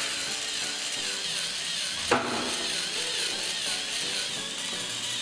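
Small dual-shaft DC motor driving a toy cement mixer's spinning drum of wet cement, its whine wavering up and down in pitch about twice a second as the drum turns. A sharp click about two seconds in.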